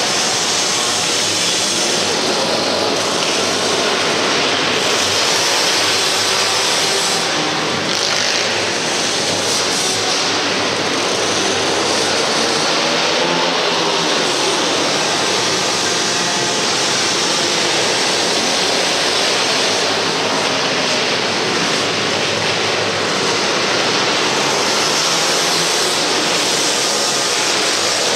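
Several small pit bike engines racing together, a continuous dense engine buzz with pitches rising and falling as the riders rev through the turns, echoing in a large indoor arena.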